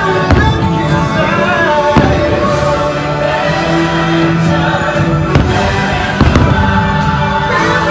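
Fireworks show soundtrack music playing loudly with sustained notes, punctuated by several sharp firework bangs from aerial shells bursting.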